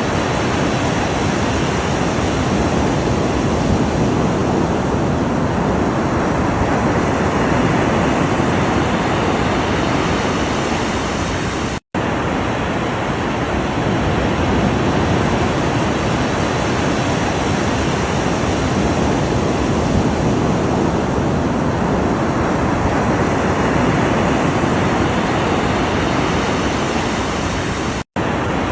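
Ocean waves: a continuous rush of surf with slow, gentle swells. The sound cuts out for an instant twice, about twelve seconds in and near the end.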